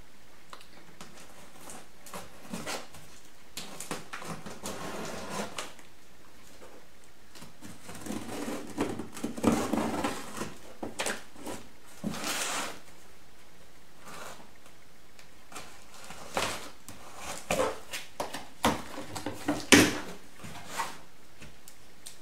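Scissors cutting packing tape on a cardboard box, then the cardboard flaps being pulled open: irregular scraping, rustling and sharp clicks, busiest in the middle and toward the end.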